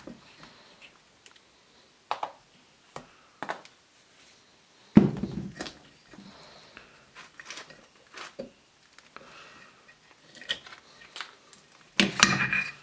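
Scattered clicks and knocks of metal pump parts being handled as a plunger and its connecting rod are worked out of a triplex pressure-washer pump's crankcase, with one heavier thunk about five seconds in and a louder clatter near the end.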